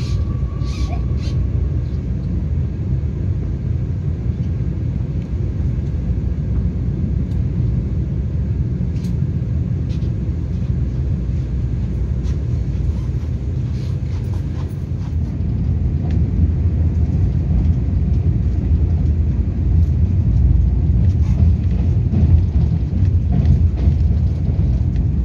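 Steady low rumble of train running noise heard from inside a Taiwan Railway EMU3000 passenger car, growing a little louder about two-thirds of the way through, with a few faint clicks.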